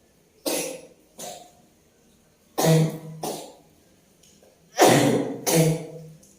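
A woman coughing from a lingering cough that has not cleared, in three bouts of two coughs each, a couple of seconds apart.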